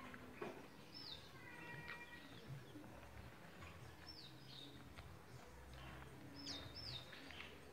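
Small cage finches chirping faintly: short, high notes that slide downward, singly and in quick pairs and threes, with a few soft clicks between.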